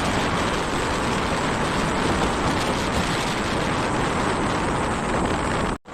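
Steady rushing wind and road noise from a moving vehicle, which cuts off suddenly near the end.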